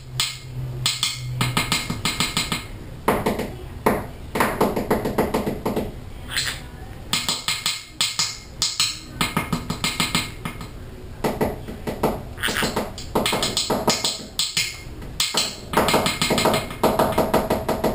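Green-cheeked conure tapping its beak in quick runs of taps, broken up by bursts of its own chatter.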